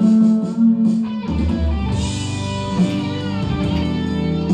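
A singer holds the last note of a sung line for about a second. Then a guitar-led instrumental backing track with bass carries on without voice.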